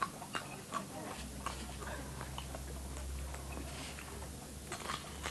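A dog eating dry dog biscuits from a bowl: irregular crunching and clicking, several crunches a second, as it chews the biscuits and noses them around the bowl.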